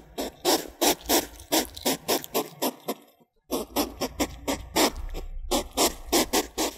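African pygmy hedgehog snuffling: a rapid run of short sniffing puffs, about five a second, with a brief pause about three seconds in.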